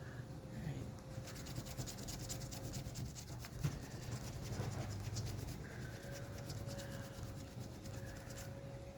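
Scraping the coating off a lottery scratch-off ticket: rapid, repeated scratching strokes that start about a second in and stop shortly before the end.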